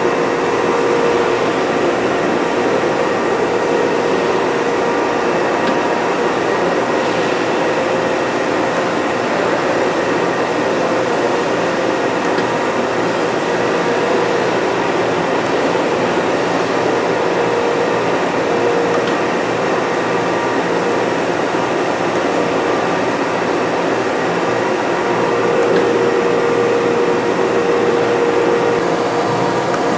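Kent KGS-620 AHD surface grinder running: a steady mechanical hum with a few held tones over it.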